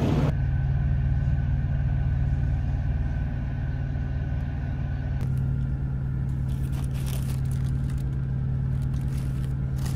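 Semi truck's diesel engine running steadily with a low, even hum. A faint high whine alongside it stops about halfway through, and a few light clicks follow near the end.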